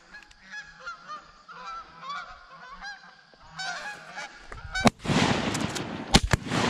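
A flock of Canada geese honking as it flies in, many short overlapping calls. About five seconds in there is a sharp knock, and a much louder rushing noise with several more sharp knocks takes over.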